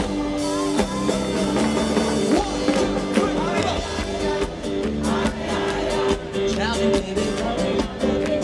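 Live rock band playing on stage: singing over electric guitar, keyboard and drums. A steady, even drum beat becomes clear about halfway through.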